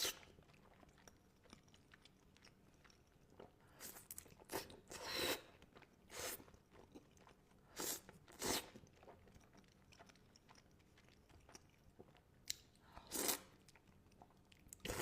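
A person chewing and biting into spicy Buldak instant noodles, in short noisy bursts every second or so with quiet gaps between.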